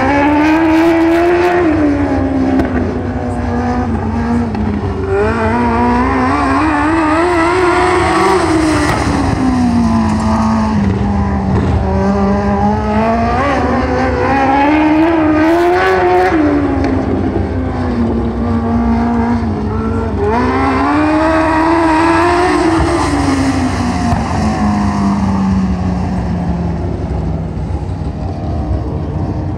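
A 1000cc winged mini sprint car's motorcycle engine running laps on a dirt oval. Its note rises and falls once a lap, about every seven seconds.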